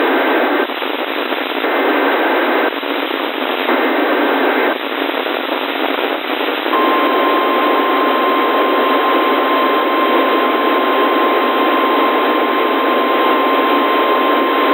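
Emergency Alert System header: three one-second bursts of data noise, a second apart, then the NOAA Weather Radio 1050 Hz warning alarm tone, a single steady beep starting about seven seconds in. All of it sits under heavy radio static, heard through a narrow radio band, and it signals that a new weather warning is about to be read.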